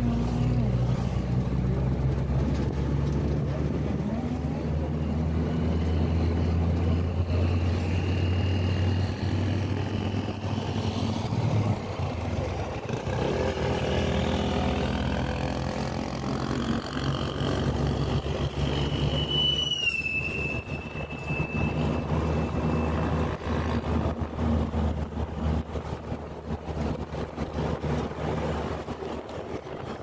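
Engine hum and road noise of a vehicle driving along a city road, with passing traffic, heard from the moving vehicle. The engine's steady hum fades out about 12 seconds in, leaving road noise, and a short high tone that falls slightly sounds about two-thirds of the way through.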